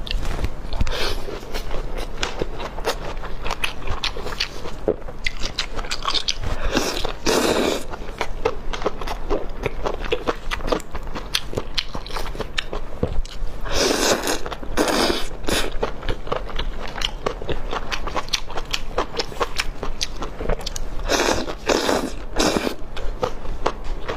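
Crunchy biting and chewing of deep-fried skewers, steady small crackles with three louder spells of crunching spread through.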